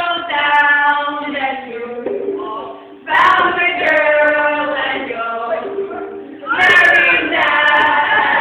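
A group of voices singing together in long held notes. The phrases break off briefly about three seconds in and again about six and a half seconds in, each time followed by a new phrase.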